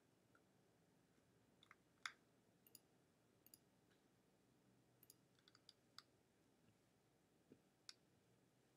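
Near silence: faint room tone with about ten small, sharp clicks at irregular intervals, the loudest about two seconds in.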